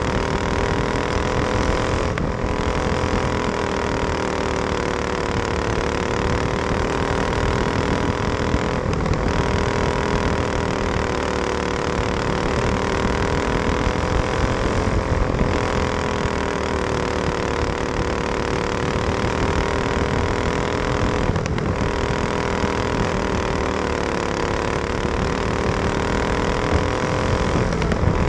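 Racing kart's engine running hard at speed, recorded on board, its pitch drifting gently up and down. The sound dips briefly about every six seconds, five times in all.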